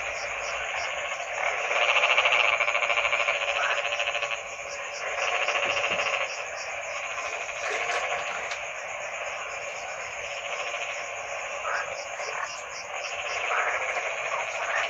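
A chorus of many frogs croaking together, a dense mass of rapid pulsing calls with fast repeated clicks above it, swelling louder a few times.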